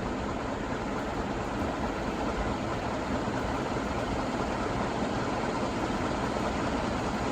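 Heritage 56-inch four-blade industrial ceiling fan with steel blades running on high after a start from standstill: a steady rush of moving air with motor hum, growing slightly louder.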